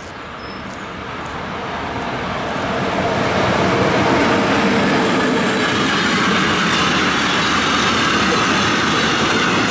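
Freight train passing close by on the line above: the rumble of its wheels on the rails grows over the first three seconds as the locomotive comes near, then holds loud and steady as the wagons roll past.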